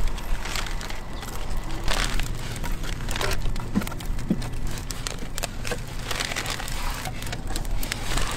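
A newspaper-and-wood kindling fire in a barrel stove's firebox, crackling and rustling, with scattered irregular snaps and knocks as the split wood is handled, over a steady low rumble.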